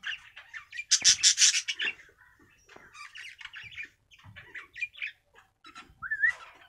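Young hand-tame cockatiel calling: a loud harsh squawk about a second in, then a run of short high chirps and a brief whistle near the end.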